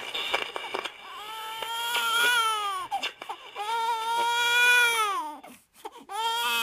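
Infant crying in long wails, three in a row, each about two seconds and dropping in pitch as it ends; the third starts near the end. Crackling clicks come before the first wail, about a second in.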